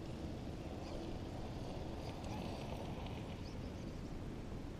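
Steady low rumble of wind on the microphone, with a few faint high chirps around the middle.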